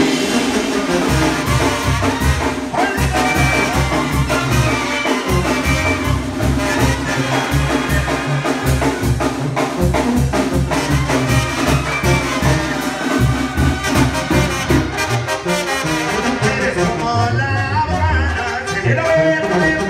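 Live tamborazo brass band playing: trumpets, trombones, clarinet and sousaphone over drums with a steady beat, with a singer's voice at times.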